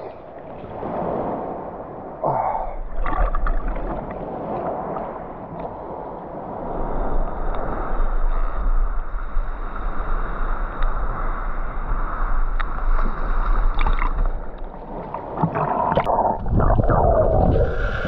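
Sea water sloshing and gurgling against an action camera held at the surface by a swimmer, with a few sharp splashes. Near the end it becomes louder and churning as the swimmer dives and the camera goes underwater.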